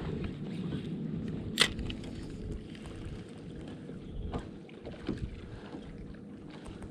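Wind buffeting the microphone over a steady low rumble on a fishing boat, with one sharp click about a second and a half in and a few fainter ticks later.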